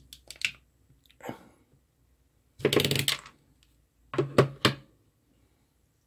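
Hand crimping tool squeezing a red insulated spade connector onto a thin wire: a few sharp clicks, a longer burst of fast clicks a little before midway, and another cluster of clicks. The crimp comes out too loose, which the owner puts down to crimpers that may not be closing down enough.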